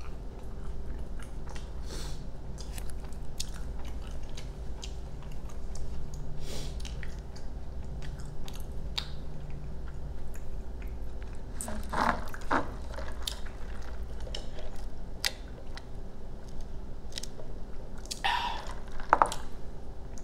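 Close-up chewing of a burrito: wet mouth clicks and smacks that come steadily, with louder bouts about 12 and 18 seconds in.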